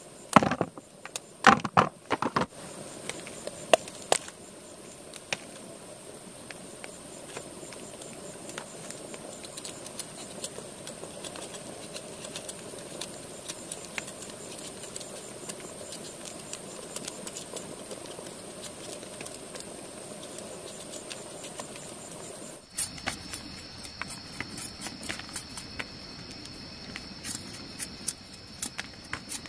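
Outdoor background with insects chirping steadily and a scattering of clicks and knocks, heaviest in the first two seconds. About 23 seconds in, the insect sound changes to a single lower steady pitch.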